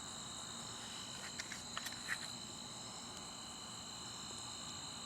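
Faint, steady trilling of crickets at several high pitches, with a few light clicks between about one and two seconds in.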